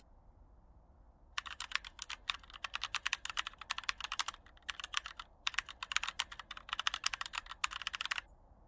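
Typing on a keyboard: runs of fast clicking that begin about a second and a half in, break off briefly a few times, and stop shortly before the end.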